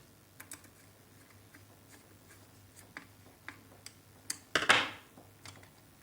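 Scattered small clicks and taps of hand wiring work at a switch's screw terminal on a plastic power-plug board, as a wire is fitted and the terminal screw worked. There is one louder scrape a little under five seconds in.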